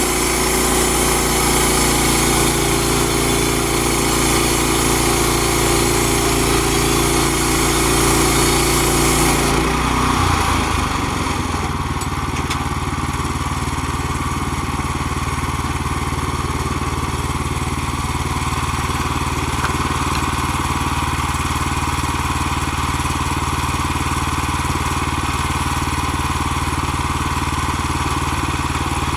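Gas engine of a Woodland Mills HM122 portable sawmill running steadily. About ten seconds in, the sound changes: a high hiss falls away and the engine's pitch shifts, then it runs on evenly.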